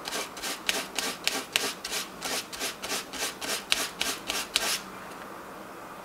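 320-grit sandpaper folded over the end of a thin insulated antenna wire, drawn back and forth to sand off the insulation down to the copper: quick scratchy strokes, about three a second, that stop about five seconds in.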